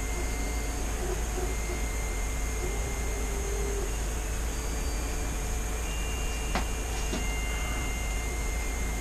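Steady low hum and hiss of room noise, with two faint clicks about six and a half and seven seconds in.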